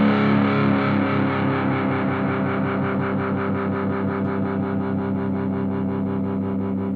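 Outro music: distorted electric guitar held through effects, pulsing steadily and slowly fading.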